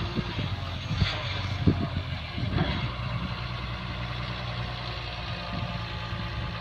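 Daewoo Solar 130W wheeled excavator's diesel engine running steadily while it works, with a few short knocks in the first few seconds.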